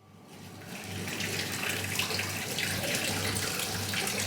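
Water running steadily, like a tap, fading in over the first second.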